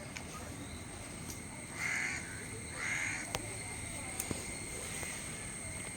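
A crow cawing twice, two short harsh calls about a second apart, with a couple of faint clicks after them.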